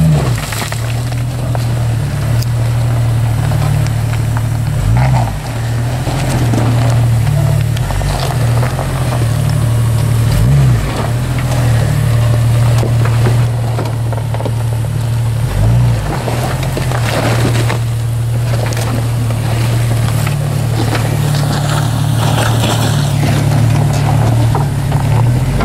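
Lifted Jeep Cherokee XJ's engine running at low revs as it crawls over rocks, a steady drone with short blips of throttle about 5, 11 and 16 seconds in.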